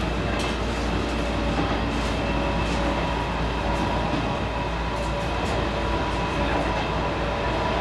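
Helsinki Metro M100 train running at steady speed, heard from inside the passenger car: a continuous low rumble of wheels on rail with a steady whine and a few faint clicks.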